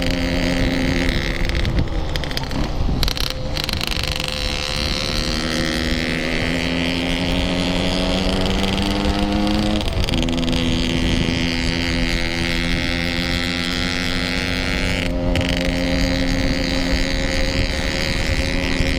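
Yamaha RX King's 135 cc two-stroke single running under way, heard from the bike. The pitch climbs slowly as it pulls, then dips and recovers twice, about two seconds in and again about halfway.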